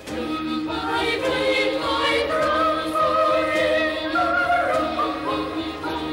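Music: a choir singing held notes.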